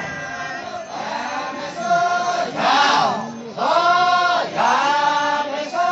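Many male voices chanting together for a folk dance: short sung calls, each rising and falling in pitch, follow one after another without a break.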